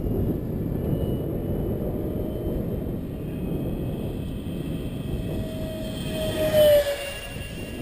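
Electric ducted fan RC jet (70mm five-blade fan on a 4000Kv motor) making a pass: its whine swells to a peak about six and a half seconds in and drops in pitch as it goes by, over a steady low rushing noise.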